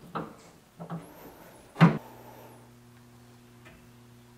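A few soft knocks, then a sharp clunk about two seconds in, followed by the steady low hum of a DoAll vertical bandsaw's motor running.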